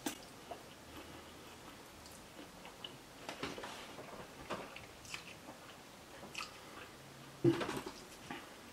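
A person chewing a big mouthful of pesto linguine, with intermittent wet, quiet mouth clicks and smacks. A brief louder sound comes about seven and a half seconds in.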